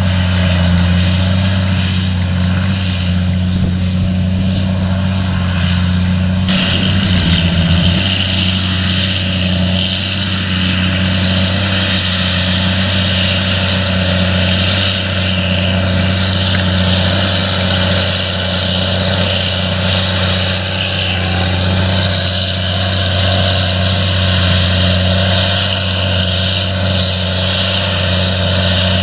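A steady, unchanging engine drone with a low hum and a hiss that grows stronger about six seconds in.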